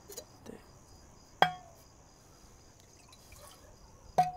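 A bottle being handled: two sharp clinks, each with a short ringing tone, about three seconds apart. Crickets chirr steadily in the background.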